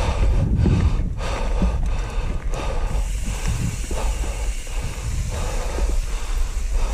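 Mountain bike rolling fast down a dirt singletrack: tyres on dirt and loose stones and the bike rattling over bumps in irregular clicks and knocks, over steady wind rumble on the bike-mounted camera's microphone.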